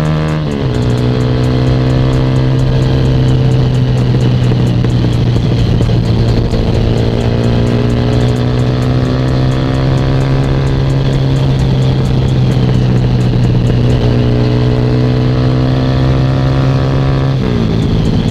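Sigma 250 sport motorcycle's engine running under way, heard from the rider's seat with wind noise. The engine note drops sharply twice, about half a second in and again near the end, and climbs slowly in between.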